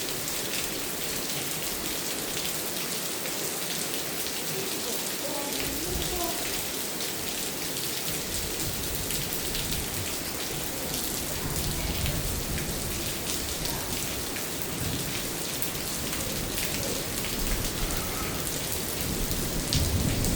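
Steady rain falling, an even hiss with scattered drops ticking, and a low rumble coming in about halfway through.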